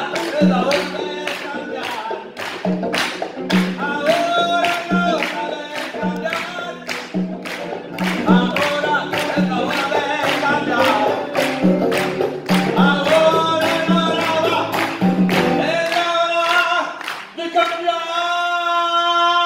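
Live Latin song with a male lead voice over acoustic guitar and hand percussion on congas, keeping a steady beat. About sixteen seconds in, the percussion and low instruments drop out and the voices sing on alone.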